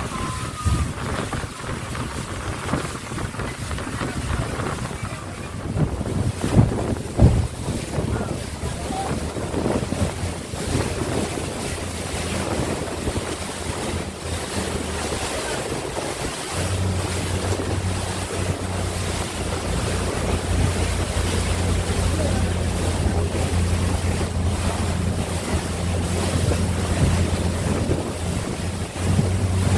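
A speedboat under way: its engine drones under wind buffeting the microphone and water rushing against the hull. The engine hum steps up and grows louder a little past halfway.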